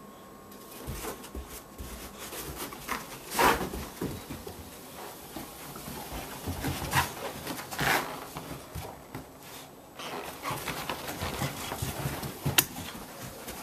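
Boxer dog at play, panting, with scuffling and thuds of its paws on carpet. There are several short, louder bursts of noise, and a sharp click near the end.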